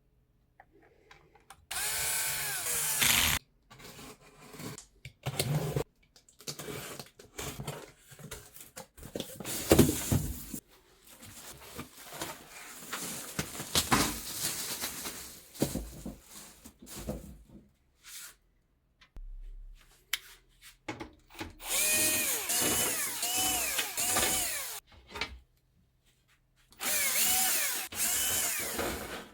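Small electric screwdriver running in three bursts, its motor pitch rising and falling as it drives screws, with clicks and handling noise of parts between the bursts.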